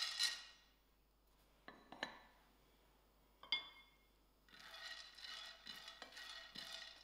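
Raw peanuts rattling into a dry non-stick frying pan, fading out within the first half second. A few sharp clinks follow as the ceramic dish and spatula are handled, the one about three and a half seconds in ringing briefly. From about four and a half seconds in, a soft rustling and ticking of the nuts being stirred in the pan with a slotted spatula.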